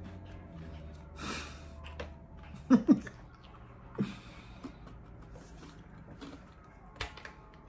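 Nose and mouth sounds of people reacting while eating: a breathy laugh or snort a little over a second in, then two short hummed vocal sounds close together near three seconds and another a second later.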